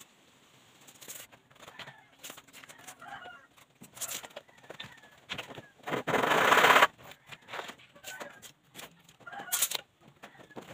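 Wooden planks knocking and scraping as they are handled and laid on a dirt floor. About six seconds in, a loud animal call lasts about a second, and fainter short calls come and go.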